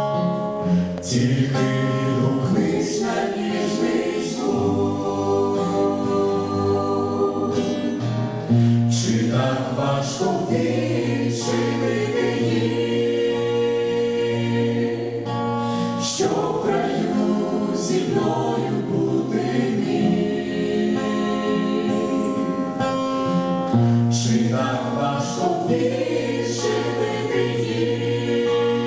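A church vocal ensemble singing a gospel hymn in harmony, with long held chords that change every few seconds.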